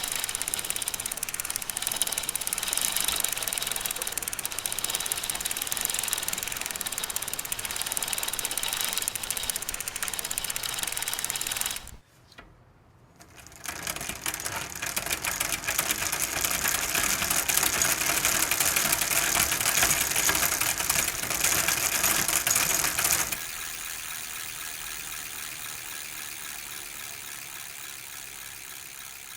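Bicycle drivetrain being pedalled: a fast, continuous mechanical rattle of chain and gears. It drops out briefly about twelve seconds in, then picks up again. Near the end it gives way to a quieter, steadier sound that slowly fades.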